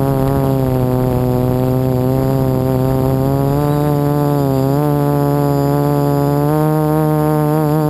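Quadcopter's electric motors and propellers buzzing, heard from a camera on the craft: a steady hum with many overtones that dips briefly in pitch about four and a half seconds in as the throttle eases, then settles again.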